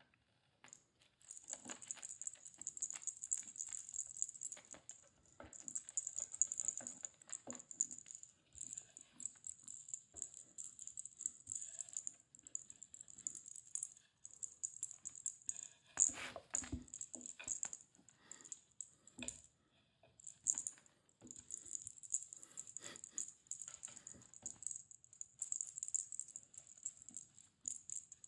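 Jingle ball on a feather cat-teaser wand rattling in quick shakes as the wand is flicked about, with short pauses. Light knocks and scrabbling of a kitten in a wooden box tunnel come through it, with one louder knock about 16 seconds in.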